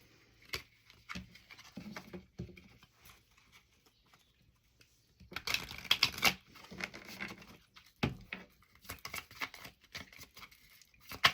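Tarot/oracle cards being shuffled and handled: light rustling and scattered clicks, with a denser burst of shuffling about halfway through.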